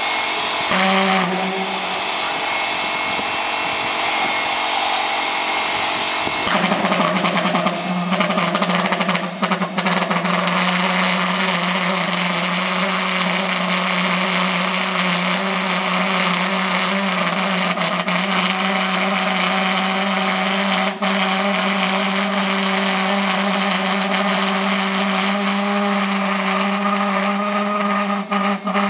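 Homemade pulse jet engine running with a steady low buzz; it is uneven for the first six seconds or so, then settles into steady, louder running.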